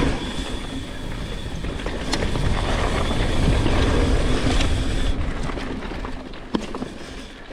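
Mountain bike rolling down a dirt trail, heard from a rider-worn GoPro: a steady rush of tyre noise, frame and chain rattle, and wind on the microphone, with a sharp knock near the end.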